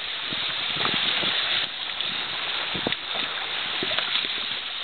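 Steady rushing of wind on the microphone and water streaming past a Hobie catamaran under sail, with a few light knocks.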